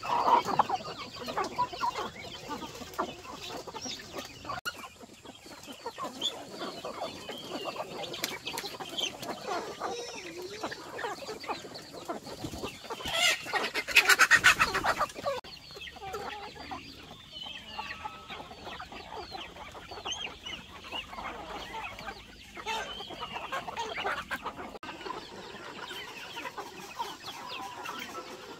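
Chickens clucking, with many short high calls throughout. A loud rushing noise lasts about two seconds around the middle.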